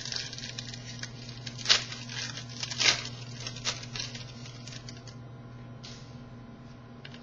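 Trading cards being handled and flipped through: light rustling and sliding with a few sharper snaps and taps, over a steady low hum.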